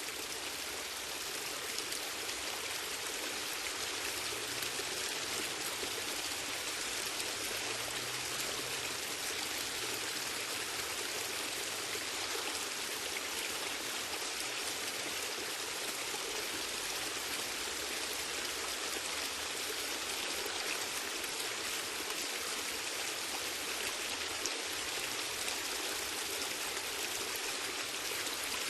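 Steady, gentle rain falling: an even, unbroken hiss of many drops.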